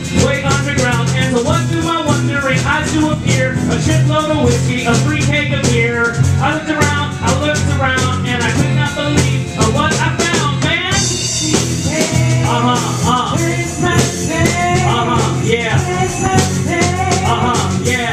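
Live band playing a rock song: a man sings lead through a microphone over electric guitar, saxophone, bass and drums, with quick steady ticking percussion throughout. A brighter cymbal wash comes in about eleven seconds in.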